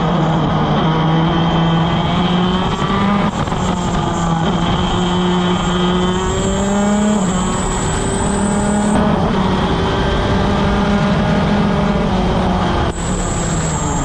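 Onboard sound of a 175cc two-stroke shifter kart engine at full throttle, its pitch climbing and dropping back at each upshift down the straight. Near the end it lifts off and shifts down for the corner.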